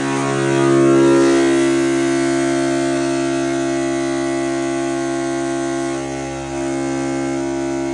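A Tesla's electric brake hydraulic pump running steadily with a loud, even hum-whine, driven by the service-mode bleed routine to push brake fluid out through the open caliper bleeder.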